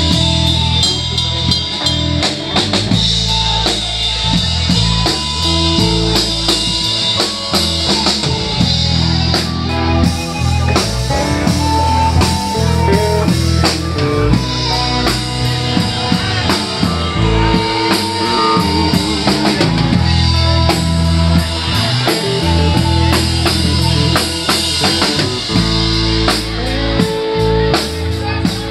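Live electric blues band playing: amplified harmonica with held notes, played cupped against a handheld mic, over electric guitar, bass and a drum kit.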